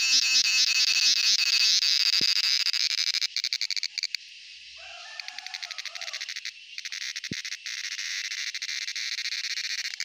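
Male cicada singing: a loud, high pulsed buzz that breaks about three seconds in into rapid clicking pulses at a lower level, then settles back into a steady buzz for the last couple of seconds.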